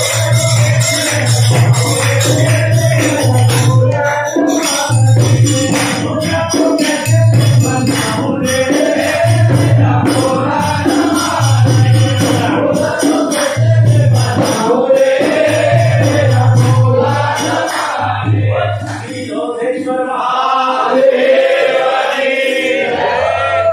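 Hindu devotional bhajan sung by a group of men, a lead voice on a microphone with others joining, over rhythmic percussion. A low beat that runs under the singing stops about 18 seconds in while the singing continues.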